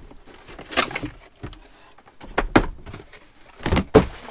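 Packaging being handled and tossed aside while unboxing: a few short bursts of rustling and sharp knocks, the loudest knock near the end.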